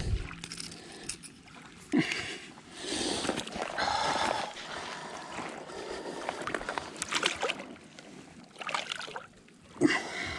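Shallow seawater splashing and sloshing around a leerfish held in it on a lip grip, with sharp knocks about two seconds in and near the end.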